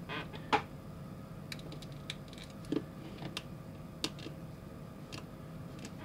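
Light clicks and taps of small plastic parts as a 3D-printed wheel is pressed onto a toy car and the car is handled, coming singly and in small clusters at irregular intervals, the sharpest about half a second in.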